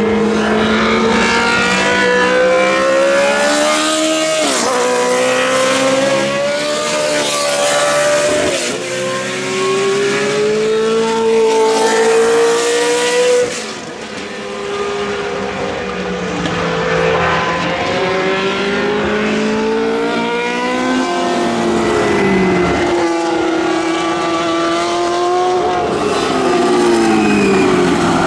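Historic Formula 1 race car engines at full song, revving up and down through the gears, the pitch dropping sharply at each gear change.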